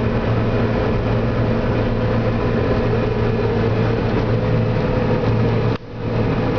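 John Deere 9770 STS combine running under harvesting load, heard from inside the cab: a steady drone of engine and threshing machinery with a low hum and a higher steady tone. The sound drops out sharply for a moment near the end, then comes back.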